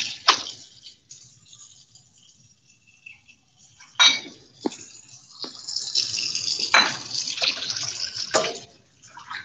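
Kitchen tap running into a sink as mustard greens are rinsed, with several sharp clinks and knocks of dishes. The water runs steadily for about three seconds in the second half.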